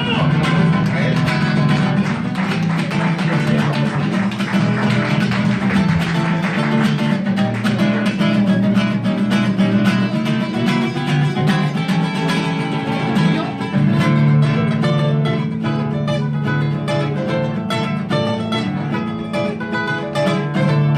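Mariachi music, with strummed and plucked guitars prominent over sustained low bass notes.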